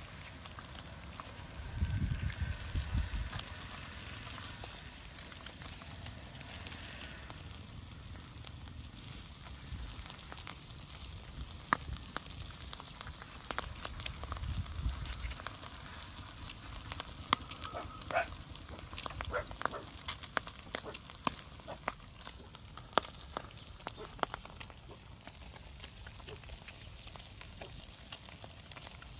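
Food frying over an open fire: a steady sizzle with scattered sharp crackles and pops. Two dull low bumps come about two seconds and fourteen seconds in.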